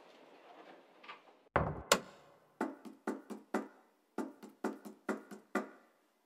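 A door thuds shut about a second and a half in, followed by a run of about ten sharp, irregular footsteps on a hard floor.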